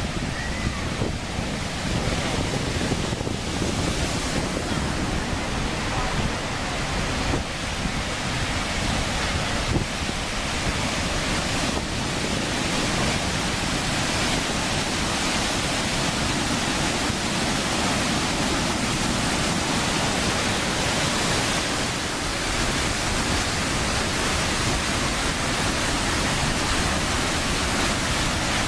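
Water rushing out of an opened dam's gates: a loud, steady rushing noise of falling, churning water.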